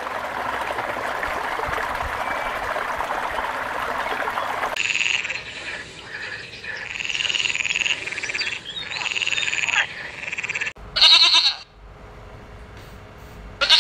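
Water churning and splashing as a crowd of koi jostles at the surface. About five seconds in it gives way to a frog calling in several pulsing croaks. About eleven seconds in a goat bleats loudly once, and another bleat begins at the very end.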